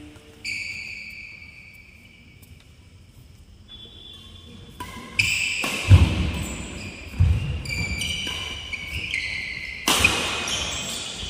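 Badminton doubles rally on a wooden court: rubber-soled shoes squeaking on the floorboards in held, high squeals, sharp clicks of rackets hitting the shuttlecock, and heavy footfall thuds as players lunge. The thuds are loudest about six seconds in.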